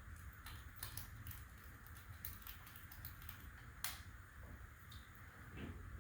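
Faint, irregular light clicks and taps of hand work on a ceiling smoke alarm's wiring and mounting parts, with one sharper click about four seconds in.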